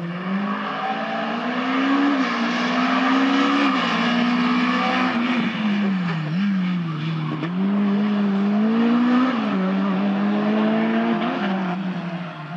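Rally car's engine (a VW Golf II) driven hard past the listener. Its pitch climbs and drops sharply several times as the driver shifts gear and lifts off.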